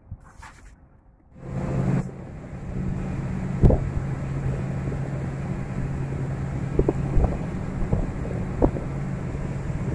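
Small motorboat's engine running steadily under way, with wind rushing over the microphone and a few sharp knocks. It starts about a second and a half in, after a brief quiet stretch.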